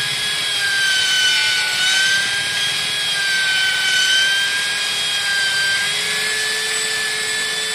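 Electric hammer drill, mounted in a welded steel drill stand, running under load as its bit bores into a concrete floor. It gives a steady high whine whose pitch dips slightly and recovers every couple of seconds.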